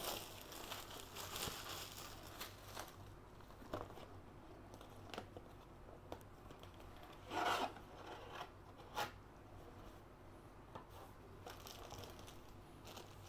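Plastic packaging crinkling and rubbing as it is handled, with scattered small clicks and a louder rustle about seven seconds in.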